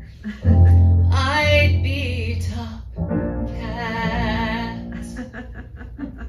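A woman singing two long held notes with vibrato over backing music.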